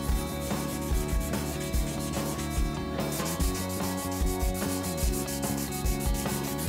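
Background music with a steady low beat under sustained chords that change every few seconds.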